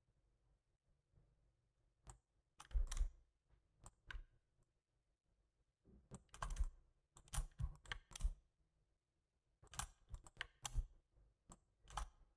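Computer keyboard keys pressed in irregular clusters of sharp clicks, starting about two seconds in, with short pauses between the groups.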